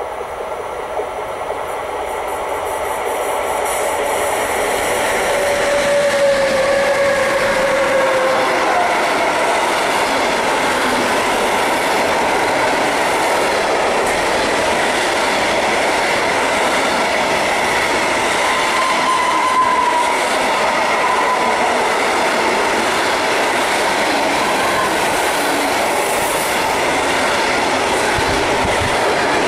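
Freight train with semi-trailers on pocket wagons passing close on a curve. The rumble and clatter of the wheels swell over the first few seconds, then hold steady as the wagons roll by. Thin wheel squeals sound on the curve about five seconds in and again about twenty seconds in.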